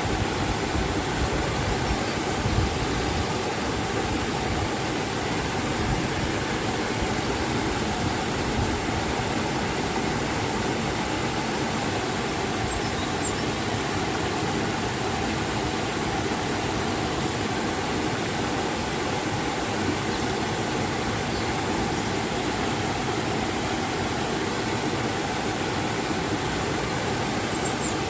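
River and waterfall water rushing in a steady, unbroken roar.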